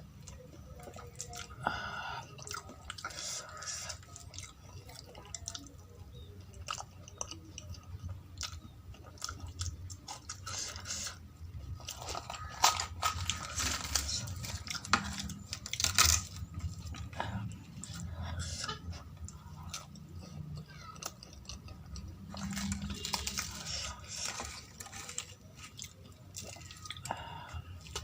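Close-up mouth sounds of a person eating poori with potato curry: wet chewing, lip smacks and the small clicks of bites, coming irregularly throughout.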